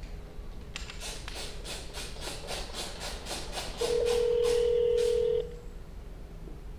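A phone number being keyed in on a smartphone: about a dozen keypad tap sounds, roughly three a second. A steady single-pitch phone tone comes in near the end of the tapping and lasts about a second and a half before cutting off.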